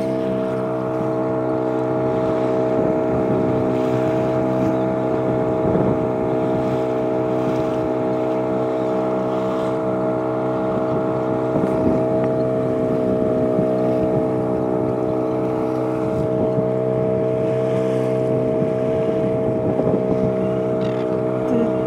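Small fishing boat's engine running at a steady trolling speed, a constant drone of unchanging pitch, over the rush of water and wind past the hull.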